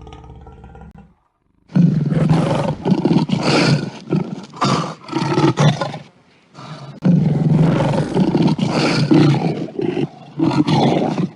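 Lion roars from sound-effect recordings: two long roars of about four seconds each, then a shorter one near the end.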